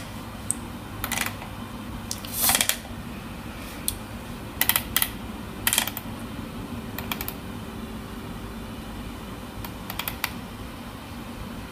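Irregular clicks on an Acer laptop's keys and touchpad, several separate clicks a second or more apart, over a faint steady hum.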